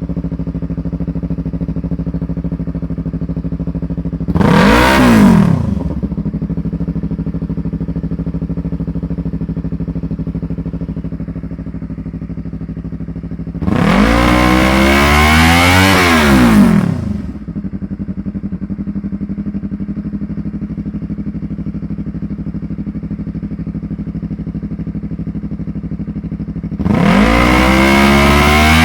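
2019 Yamaha YZF-R3's parallel-twin engine through a Yoshimura full exhaust, idling steadily and revved three times: a short blip about four seconds in, a longer rev held for about three seconds midway, and a third rev near the end.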